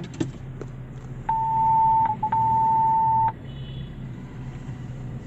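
An electronic beep: one steady high tone lasting about two seconds with a brief break in the middle, over the low steady hum of a car engine. A few sharp clicks sound just at the start.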